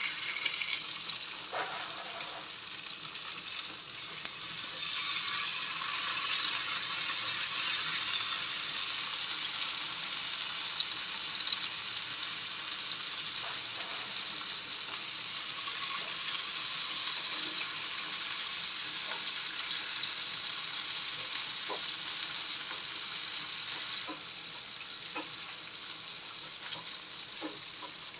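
Salmon fillets frying skin side down in olive oil on low heat in a nonstick pan: a steady sizzling hiss as the skin crisps, easing a little near the end. There are a few light clicks of metal tongs against the pan.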